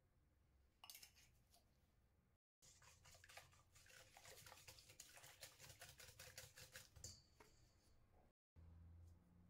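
Faint, rapid clinking and scraping of a wire whisk beating eggs and melted butter in a stainless steel bowl, lasting a few seconds through the middle.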